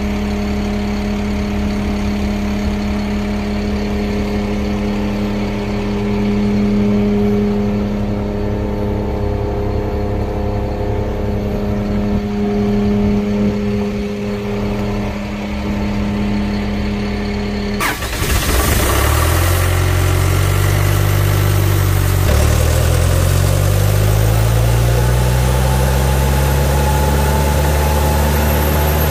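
Diesel engine of a sewer jetter truck idling steadily, then, after an abrupt change about two-thirds of the way in, running harder with its pitch rising twice, as when the truck pulls away and shifts up a gear.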